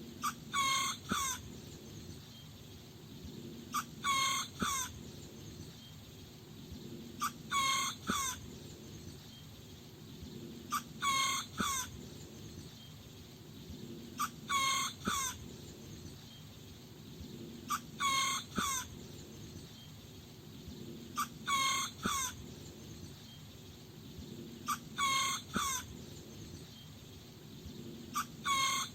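A small rooster crowing over and over, a short high-pitched crow of about a second repeating evenly about every three and a half seconds.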